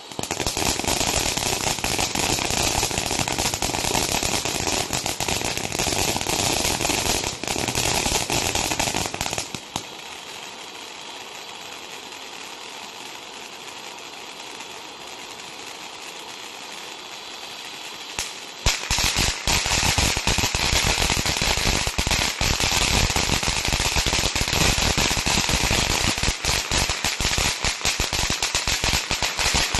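Piromax PXF214 fountain battery firing. It gives a loud spray of dense, rapid crackling for about nine seconds, then a quieter steady hissing fountain. A second loud crackling phase starts about two-thirds of the way through and cuts off abruptly at the end.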